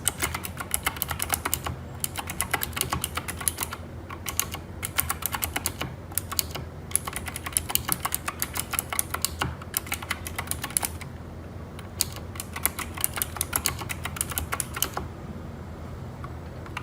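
Keychron K4 v2 mechanical keyboard with clicky Gateron Blue switches, typed on fast in bursts of rapid key clicks with short pauses. The keycaps are filled with silicone. The typing stops a couple of seconds before the end.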